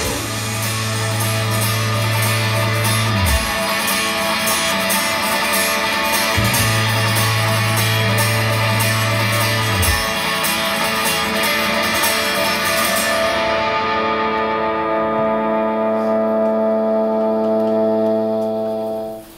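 Loud guitar-driven rock music with no singing: the closing instrumental bars of a song. The cymbals drop out about two-thirds of the way through, and a held final chord rings on, fades and stops near the end.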